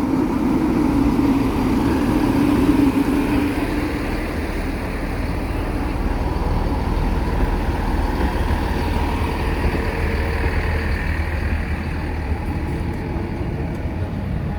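A vehicle running close by: a steady engine rumble with rolling noise, loudest in the first few seconds and then easing to a steady level.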